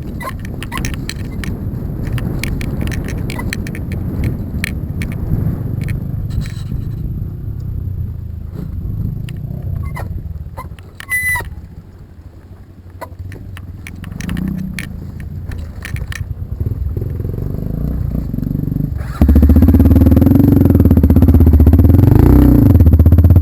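A motor vehicle running over a rough trail, with a low rumble and many knocks and rattles. About 19 seconds in, a much louder engine sound cuts in suddenly, its pitch rising and falling.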